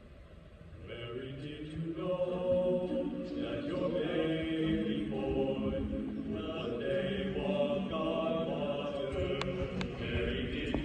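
A choir singing sustained chords, coming in about a second in after a brief hush.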